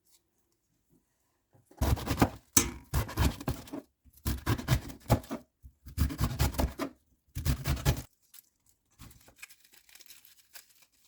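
Leaves being torn from a head of Chinese cabbage: five crisp tearing, crunching bursts, each about a second long, followed by fainter rustling near the end.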